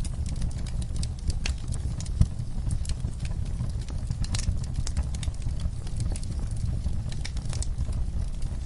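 Fireplace fire crackling: irregular sharp pops and snaps over a steady low rumble, with one louder pop about two seconds in.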